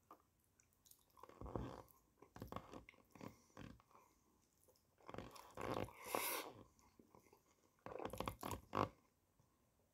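Close-up chewing and mouth sounds of a person eating rice in tomato sauce from a spoon, coming in four bursts with short pauses between.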